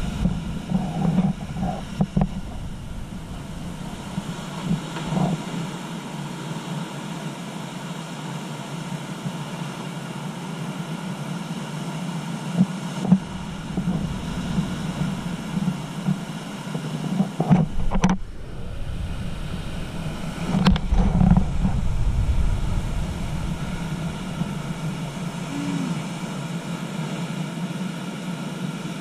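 Ocean surf breaking and washing over a rocky shoreline, a steady rushing with heavier low surges about two-thirds of the way through, mixed with wind rumble on the microphone.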